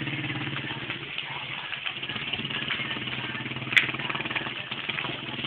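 A small engine idling steadily, its low hum fading through the middle and coming back strong near the end, with one sharp click a little under four seconds in.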